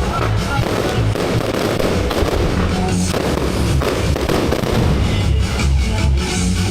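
Fireworks going off in a dense, continuous crackling barrage with deep thuds, with music playing underneath.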